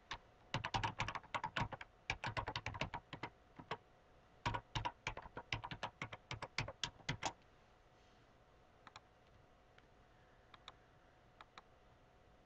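Typing on a computer keyboard: two quick runs of keystrokes with a short pause between them. A few faint single clicks follow near the end.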